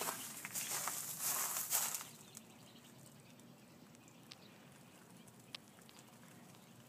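Footsteps and rustling of a person walking for about two seconds, then a quiet outdoor background with a couple of faint clicks.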